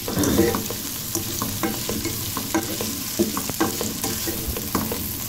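Chicken and vegetables sizzling in hot oil in a frying pan as they are stir-fried, with irregular clicks and scrapes of a slotted spatula against the pan.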